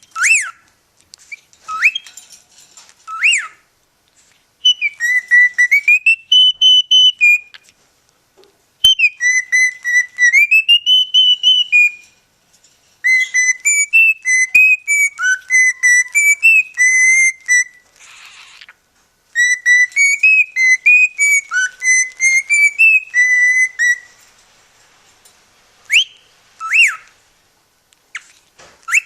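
A cockatiel whistling a tune in four runs of quick notes, with a few short swooping whistles before and after.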